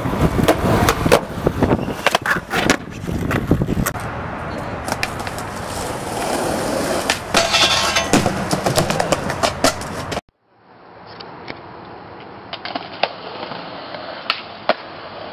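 Skateboard rolling on rough concrete, with frequent sharp clacks as the board pops and lands. After an abrupt cut about ten seconds in, the rolling is quieter and steadier, with a few scattered clicks.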